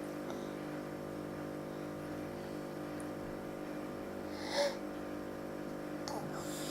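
Steady background hum of several fixed tones, with one short snuffle from a drowsy baby about four and a half seconds in.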